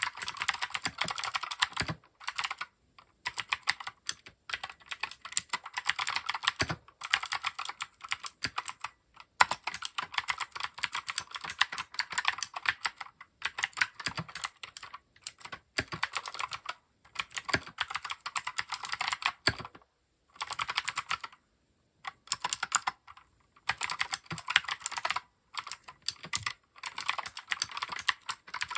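Keychron K6 mechanical keyboard being typed on in fast runs of key clicks, with short pauses between bursts.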